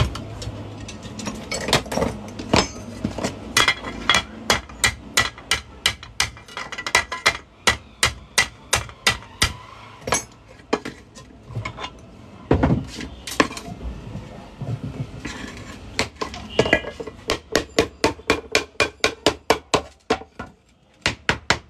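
Hand hammer striking a metal pan, a long run of sharp separate blows at about two a second that quicken to about four a second near the end.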